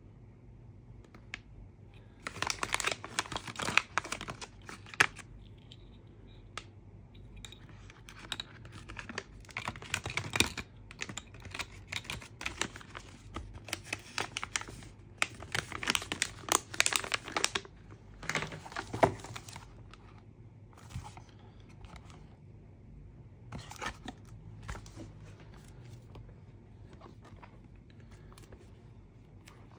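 Packaging being opened by hand: wrap crinkling and tearing with small clicks and knocks. It comes in two busy spells, the longer one in the middle, and thins to a few scattered clicks near the end.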